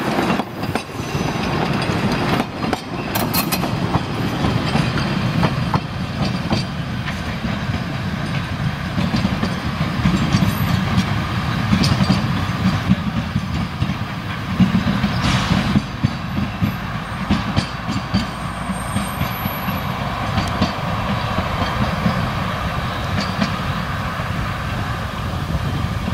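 Narrow-gauge diesel-hauled train rolling past and away, its wheels clicking over the rail joints with a steady running rumble. Scattered sharp clicks and knocks ride on top of the rumble.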